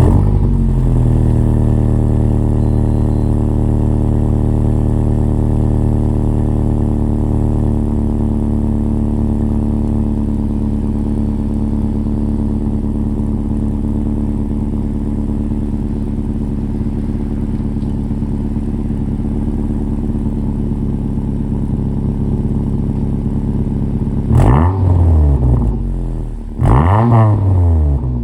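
Car exhaust through an A'PEXi N1 muffler with an Active Tail Silencer valve, fitted with a softer Φ1.6 mm spring and 2.38 mm ball so it opens at lower exhaust pressure. The engine has just started: the idle drops and settles over the first several seconds, then holds steady, and near the end the throttle is blipped twice, each rev rising and falling back to idle.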